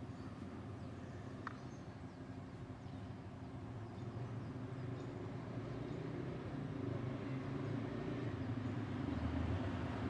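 Motor vehicle engine rumbling, growing louder through the second half.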